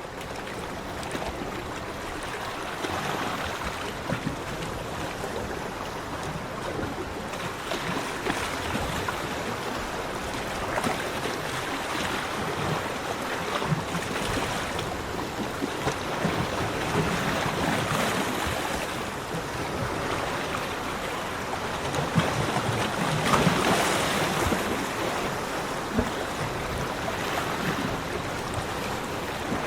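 Sea waves breaking and washing up a beach, a continuous rush of surf that swells and eases every few seconds, with several stronger surges.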